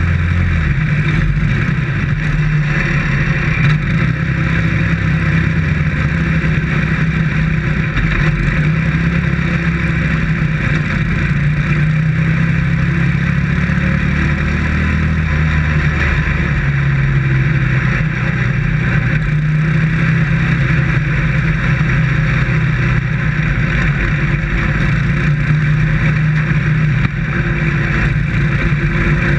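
Dirt-track modified race car engine running hard from inside the cockpit, its note rising and falling every few seconds as the throttle comes on and off around the oval, over a rough rattling din.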